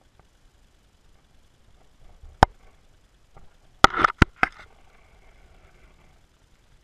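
Sharp knocks of a GoPro Hero 3's waterproof housing striking rocks on the lake bottom, heard from inside the housing underwater: one knock about two and a half seconds in, then a quick cluster of four or five about a second later.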